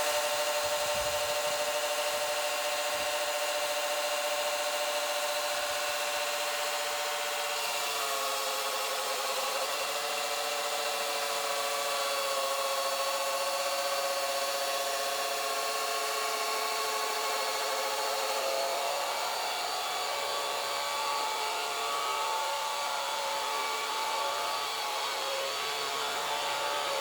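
Old sawmill running and cutting a log, a steady whining saw tone. The pitch drops slightly about eight seconds in as the blade takes the load of the cut, then wavers and shifts again later.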